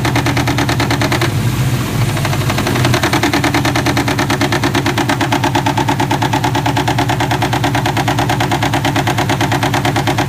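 Subaru WRX turbocharged flat-four boxer engine idling with a rapid, even knock pulsing through it: the knocking noise the owner is asking about.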